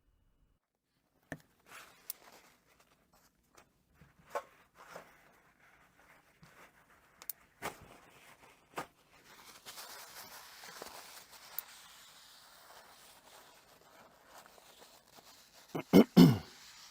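Handling noises at a workbench as a glue-bound book is worked on: scattered light clicks and paper rustling, a soft rustling stretch in the middle, and two loud knocks near the end.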